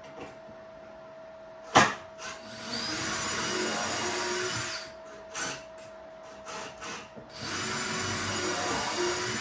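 A sharp knock about two seconds in, then a power drill driving into wood in two runs of about two and a half seconds each, with short trigger blips between them.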